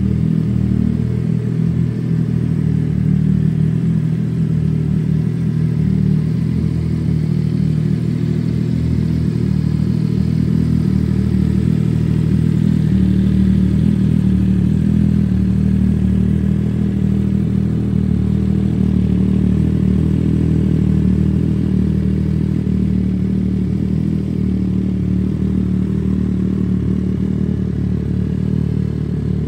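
MV Agusta Dragster 800 RR's three-cylinder engine idling steadily on its stand, with an even, unchanging note.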